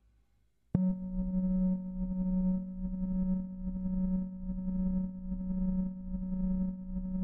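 A steady low electronic drone tone starts suddenly about a second in and holds, over a faint low rumble.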